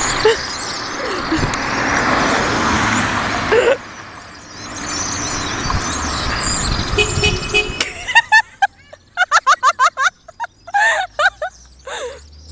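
A huge flock of birds calling all at once, a dense chatter of overlapping calls. In the last few seconds it thins into separate, distinct squawks.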